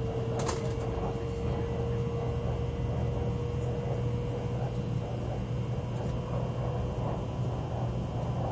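Steady running noise heard from inside an elevated train carriage: a low rumble with a faint steady tone that fades out near the end, and a short click about half a second in.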